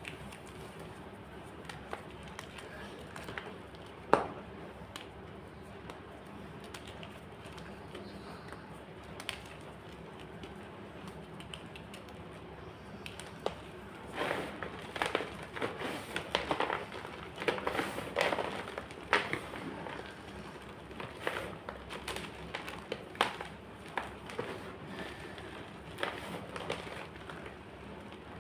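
White gym chalk being crunched and crushed, crackling: scattered single cracks at first with one sharp crack about four seconds in, then a dense run of crunching from about halfway through that thins out near the end.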